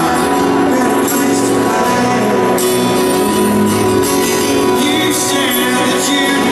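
Live rock band playing with a sung melody, in a loud audience recording.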